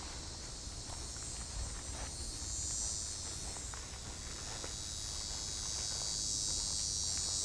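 Steady high-pitched insect chorus that swells twice, with a few faint footsteps on grass beneath it.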